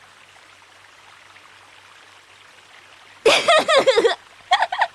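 A faint steady hiss of background ambience, then a person's voice breaks in about three seconds in, with a short pause before the end.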